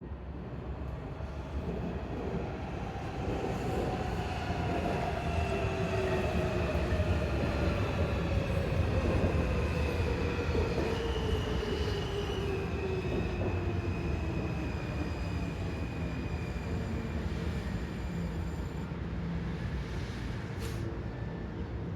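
Washington Metro Red Line train pulling into the station and slowing. Its electric motors give a whine that falls steadily in pitch over several seconds, over a rumble of the wheels, with a high steady squeal from the wheels on the rails.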